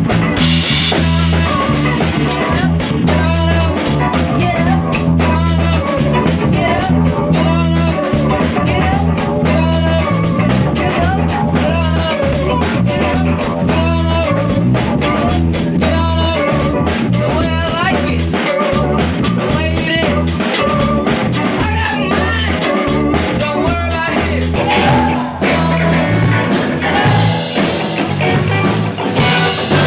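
Live rock band playing loud: electric guitar over a drum kit, with low bass notes underneath.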